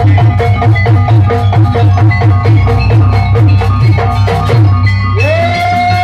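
Jaranan gamelan-style music: mallet-struck metallophones and drums playing a fast, repeating pattern. About five seconds in, a held melody note slides up and sustains over the percussion.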